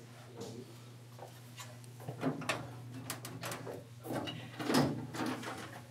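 A run of knocks, clicks and rattles, like a drawer or door being handled, starting about two seconds in and loudest near the end, over a steady low hum.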